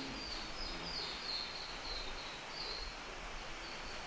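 Small birds chirping, short high notes repeating every half second or so over a steady background hiss.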